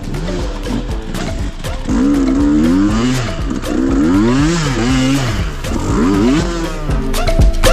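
Trail motorcycle engine revving up and down again and again, its pitch rising and falling with the throttle.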